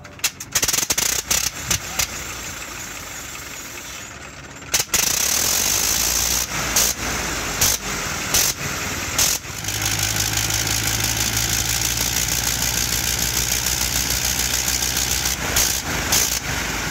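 Rotary engine of a WWI-era biplane being started. It catches about five seconds in, fires unevenly for a few seconds, then settles into a steady run from about halfway with the propeller turning.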